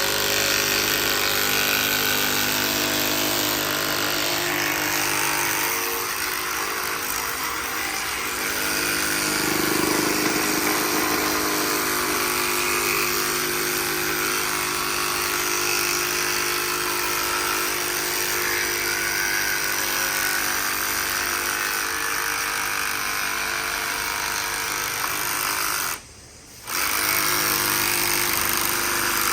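Electric power tool running continuously, its motor giving a steady whine of several held tones, with a short break about three-quarters of the way through.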